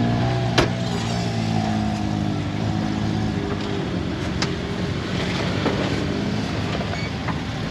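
ATV engines running, one engine's note falling and fading over the first few seconds, with a sharp click about half a second in.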